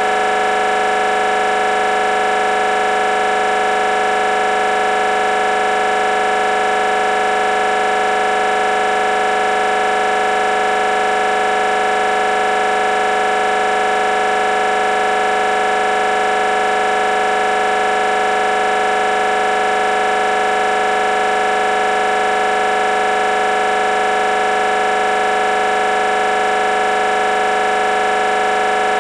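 A loud, steady electronic drone of several held pitches that never varies in level or pitch. It cuts in abruptly and masks every other sound.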